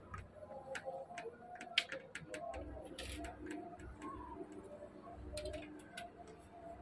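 Scattered light clicks and taps of a thin flat metal strip knocking against an aluminium sliding-window frame and glass as it is worked through the gap to reach the latch, with a brief scrape about three seconds in.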